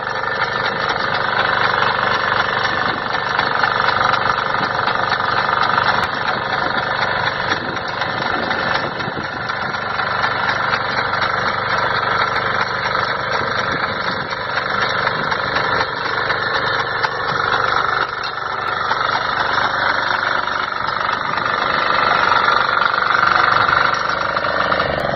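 Mini power tiller's small engine running steadily, its level swelling and easing slightly a few times.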